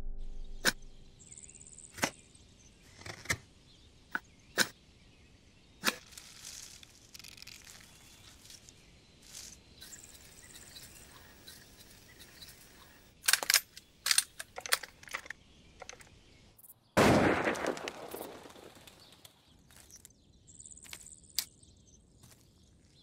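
Woodland ambience with sparse sharp snaps and clicks and a few high bird chirps. A loud rushing swell of noise comes in suddenly about two-thirds of the way through.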